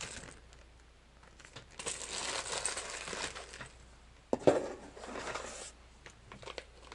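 Plastic zip-top bag crinkling and rustling as the loose crankbaits and spinnerbaits inside clink together, with a sharp clack about four seconds in, then a few faint clicks.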